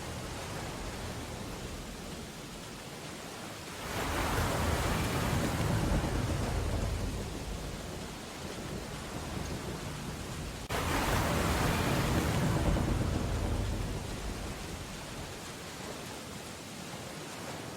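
Storm ambience of steady rain on window glass, with two long surges of deep roar, one about four seconds in and the other starting suddenly about eleven seconds in, each fading over several seconds.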